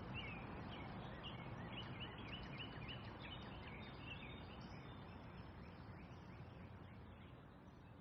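Outdoor nature ambience: a steady background hiss with small birds chirping in quick, repeated short calls, the chirps thinning out about halfway and the whole sound fading down toward the end.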